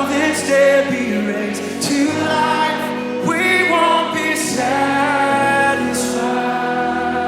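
Live worship band and singers performing a slow song: sung vocals over sustained keyboard chords with cymbal swells.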